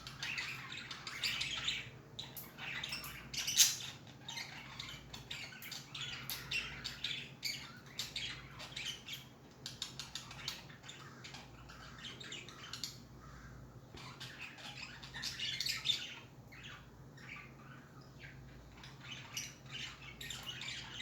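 A flock of budgies chirping and chattering continuously, with a sharp loud squawk about three and a half seconds in and another about three quarters of the way through. A steady low hum runs underneath.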